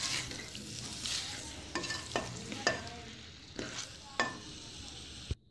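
Black plastic spatula stirring macaroni and vegetables in a metal pan, scraping and knocking against the pan several times over a steady sizzle of frying. The sound cuts off suddenly near the end.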